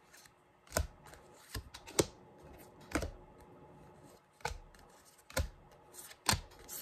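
Tarot cards being handled and laid down on a stack on a wooden tabletop: a sharp tap or flick of card about once a second, at uneven intervals.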